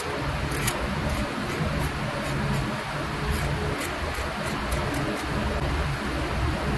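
Pointed metal tool scratching patterns through the lacquer on a turned wooden piece, heard as faint, irregular light ticks over a steady background rumble and hiss.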